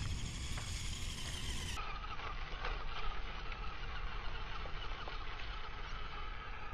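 Flytec 9118 1:18-scale RC crawler's small electric motor and drivetrain running at full throttle: a wavering high whine over a steady rough noise.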